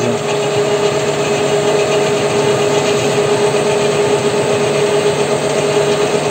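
WM210V benchtop lathe running steadily, its motor and gear train giving a constant whine under a metallic hiss. The leadscrew feed carries the cutter along a spline groove in the steel half-shaft.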